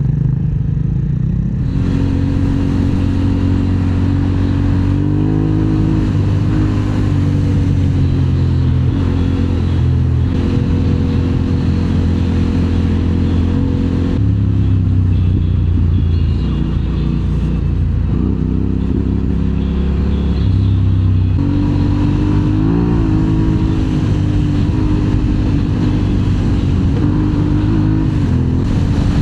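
Motorcycle engine running under way, its pitch holding steady for stretches and shifting several times with throttle and gear changes, over steady wind and road noise.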